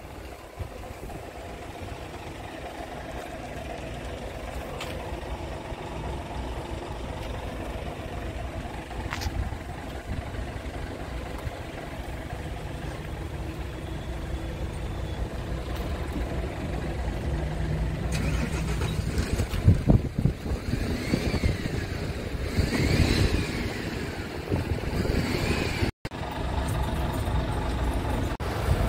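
Scania R580's V8 diesel engine idling steadily, a low even rumble.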